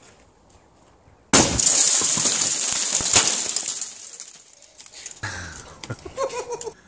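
A car airbag going off: a sudden bang about a second in, then a few seconds of hissing and crackling with breaking and clinking glass that fades away.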